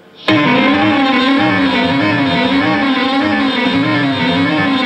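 A live rock band comes in abruptly about a quarter second in, loud: a sustained note wavering slowly up and down in pitch over a lower bass part.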